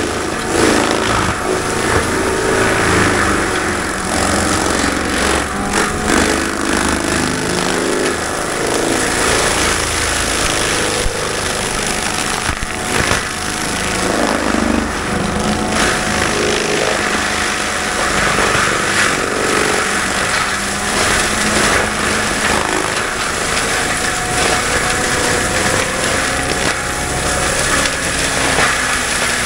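Cat compact track loader running at work with a forestry mulcher head spinning, its drum teeth chewing through mulch, debris and dirt on the ground. A loud, steady mix of diesel engine and grinding drum throughout.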